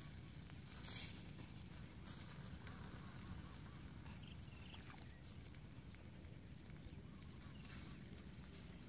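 Quiet outdoor background with a steady low rumble, a short sharp crackle about a second in, and a few faint ticks.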